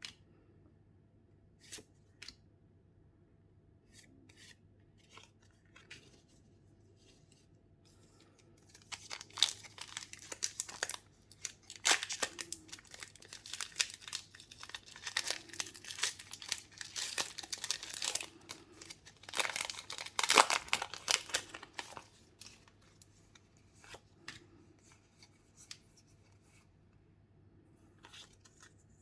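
Pokémon card packaging being torn open and crinkled by hand: a few light clicks and taps, then a long stretch of dense tearing and crinkling of plastic wrapping in the middle, easing back to occasional handling noises near the end.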